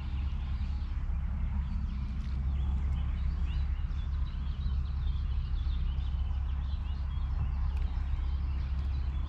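Small birds chirping and twittering in many short calls, over a steady low rumble of wind on the microphone.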